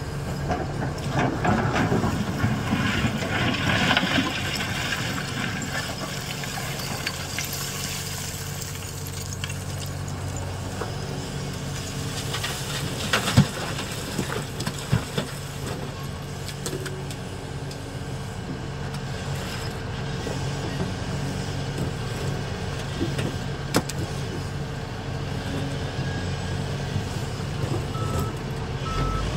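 Diesel engines of an excavator and tipper truck running steadily, with rough scraping and clattering of loaded rock in the first few seconds and a few sharp knocks midway. A truck's reversing alarm starts beeping near the end.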